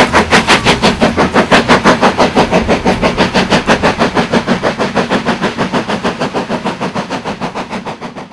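Steam locomotive working hard, its exhaust chuffing in rapid, even beats about five or six a second, fading away near the end.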